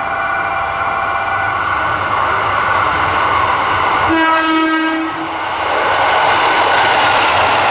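JR Kyushu KiHa 185 diesel express railcar approaching and passing through a station, its engine and wheels running steadily. One horn blast of about a second comes around four seconds in, then the running noise grows louder as the train draws close.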